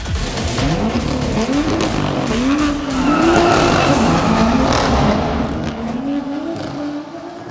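BMW M2's turbocharged straight-six, through its M Performance exhaust, revving up and down again and again as the car pulls away, then fading as it drives off into the distance near the end.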